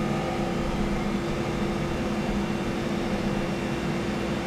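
Steady background hum of kitchen machinery: an even, fan-like rushing with one constant low tone.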